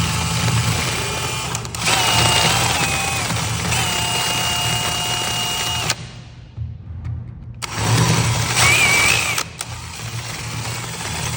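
DeWalt cordless drill running under the trigger, its motor whine stepping up and down in pitch as a hole is drilled deeper for a wall anchor. It stops about six seconds in and starts again a second and a half later.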